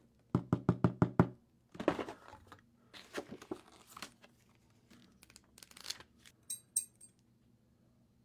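Mechanical keyboard being clicked and handled: a quick run of about seven sharp clicks, then scattered knocks, clicks and rustling, with two brighter ringing clicks near the end.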